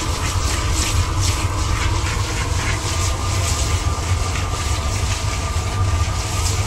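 A long wooden paddle stirring popping kettle corn around a large kettle, a rhythmic scraping swish about three strokes a second that fades near the end, over a steady low rumble.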